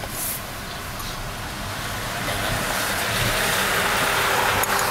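Car moving in traffic, heard from inside the cabin: a steady engine and road rumble with hiss that grows louder about two seconds in.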